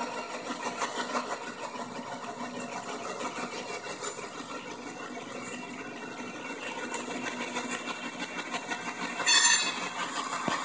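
Freight train rolling past close by: a Norfolk Southern diesel locomotive and then freight cars clattering over the rails, with a brief high-pitched wheel squeal about nine seconds in.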